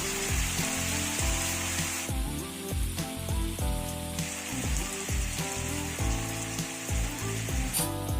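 Background music with a steady beat over potatoes sizzling as they fry in oil in a pan. The sizzle comes in two stretches: one at the start lasting about two seconds, and a longer one from about four seconds in until just before the end.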